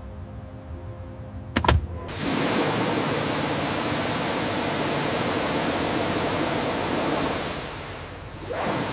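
Pressure-washer wands spraying high-pressure water, a loud steady hiss that starts just after a sharp knock about two seconds in and lasts about five seconds before fading out near the end.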